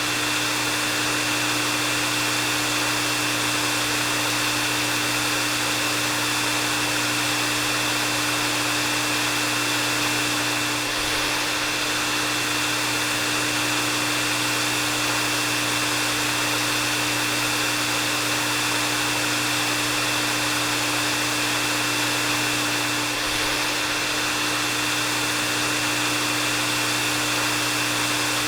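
Hair dryer running steadily: an even rush of air over a constant motor hum and a thin high whine.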